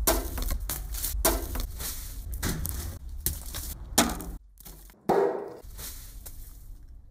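An irregular series of sharp knocks and crunches, two or three a second, over a low steady rumble. The loudest knock comes about four seconds in, followed by a short lull and another strong hit.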